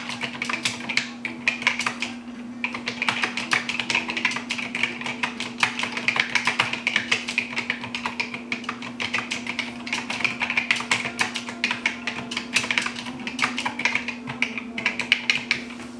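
Fast typing on a Fortune Systems keyboard with Digitran capacitive key switches: a dense, continuous run of key clacks with a brief lull about two seconds in. A steady low hum sits underneath.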